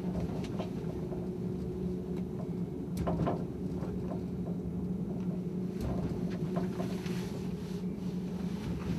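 Mini-funicular car running along its steep track: a steady hum with scattered clicks and clacks, a cluster of them about three seconds in.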